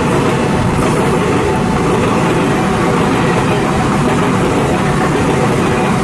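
Passenger coaches of an Indian Railways express train passing close by at speed: a loud, steady rumble of wheels running on the rails.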